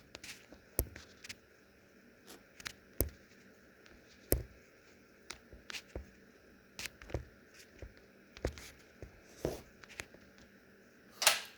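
Box packaging being handled by hand: scattered sharp clicks, taps and light scrapes, with a longer, louder rustling scrape near the end.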